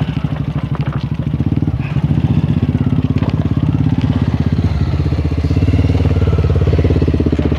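Motorcycle engine running under way with a fast, even firing rhythm; its note grows fuller and louder a little past halfway through.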